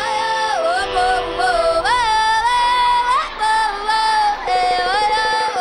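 Background music with a sung melody of long, held notes that glide between pitches.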